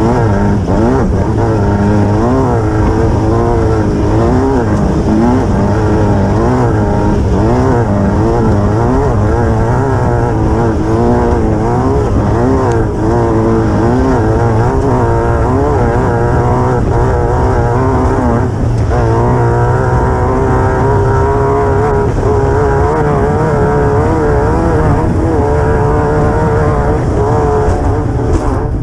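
Engine of a Class 9 desert race buggy at race pace, heard on board: its revs keep rising and falling about once a second as the throttle works, over a steady rumble of chassis and wind noise.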